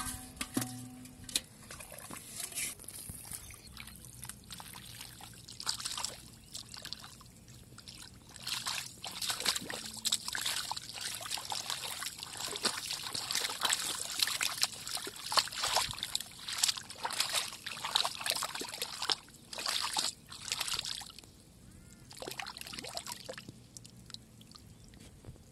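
Hands sloshing and splashing through shallow muddy water while digging in the mud, a long run of irregular splashes and drips, busiest in the middle and thinning out near the end.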